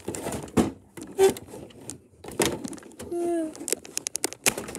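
Handling noise as a phone is moved and set down in a plastic toy house: irregular knocks and clicks of plastic on plastic, with a short pitched squeak about three seconds in.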